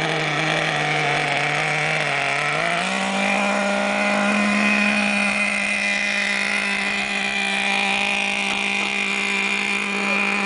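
Mini MGT car engine running, its note dipping a little and then climbing back about three seconds in before holding steady. A steady, thin, high tone rides above it: the unexplained squeaking the owner is asking about.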